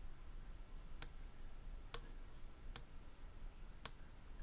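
Computer mouse clicking: four single sharp clicks about a second apart.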